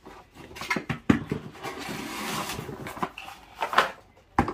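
Cardboard box and plastic packaging being handled as an air purifier is taken out: a few sharp knocks about a second in, a longer stretch of rustling in the middle, and more knocks near the end.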